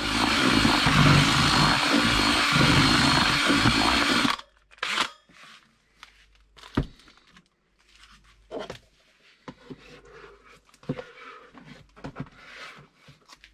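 Electric drill spinning a whisk-type paddle mixer through dry groundbait flour in a plastic bucket, motor running with the gritty churn of the crumbs, for about four seconds before it stops abruptly. A few light knocks and clicks follow as the drill is lifted out and set down.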